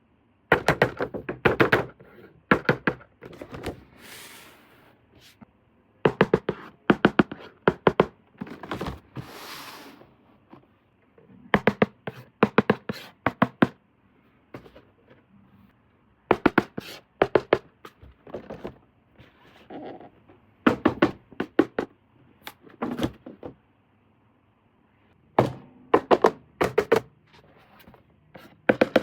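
Hands handling toy packaging: quick clusters of sharp taps and knocks on plastic and cardboard, coming every second or two, with two short rustling bursts.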